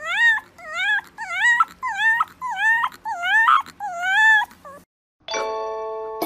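A dog whining in a quick run of high yelping calls, each rising and then falling in pitch, about two a second. The calls stop about five seconds in, and a ringing chime follows.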